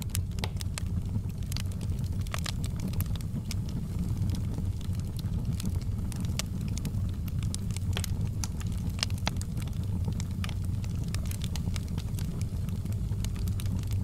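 Wood logs burning in a fireplace: a steady low rumble of the flames with frequent, irregular sharp crackles and pops.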